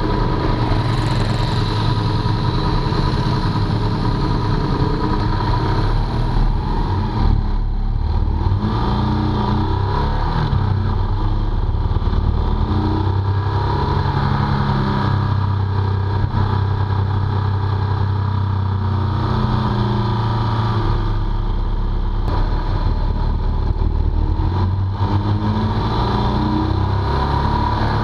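Motorcycle engine running steadily while riding along, its pitch stepping down and back up several times.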